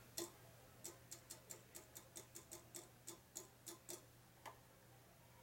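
Faint, even clicking, about three light clicks a second for some four seconds and then one more, from hand work on a milling-machine set-up while a bore is being indicated in to centre. A steady low hum runs underneath.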